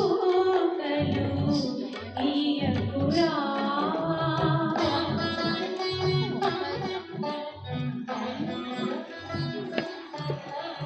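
Indian classical-style music with plucked strings and hand drums keeping a beat, and a singing voice gliding through the melody.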